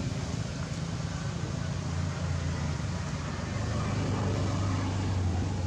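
Low, steady drone of a running motor, its pitch settling lower partway through.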